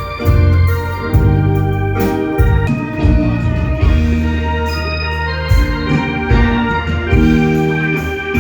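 Live music from a small Thai procession-truck band, led by an electronic organ over a loud bass line.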